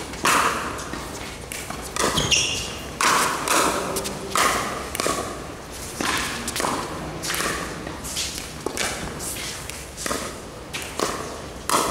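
Pickleball rally: paddles striking a hollow plastic ball in quick exchanges, a sharp pop roughly every half second to a second, each ringing out in the echo of a large indoor court hall.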